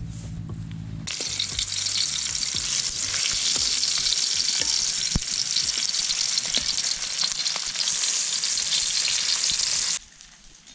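Pieces of dried fish (daing) frying in hot oil in a large steel wok: a loud, steady sizzle with occasional light clicks of metal tongs turning them. Background music plays for about the first second, and the sizzle cuts off suddenly near the end.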